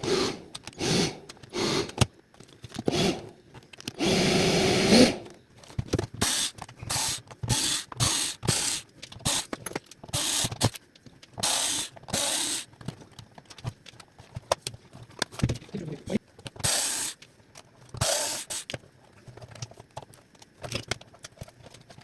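Irregular plastic clicks, knocks and short scrapes from handling and working on a cordless upright vacuum cleaner's floor head, with one steady noise lasting about a second about four seconds in.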